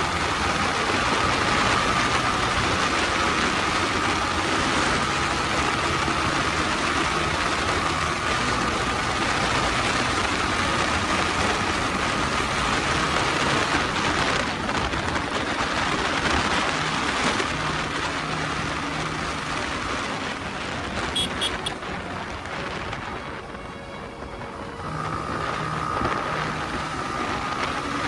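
Yamaha MT-15's single-cylinder engine running at speed under loud wind rush on the microphone. The wind and engine ease off for a few seconds near the end, then build again.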